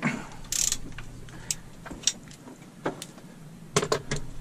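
Scattered metallic clicks and knocks of hand tools and bolts as the idler pulley bracket is unbolted from a Mercruiser 5.7 marine engine, with a brief scrape about half a second in.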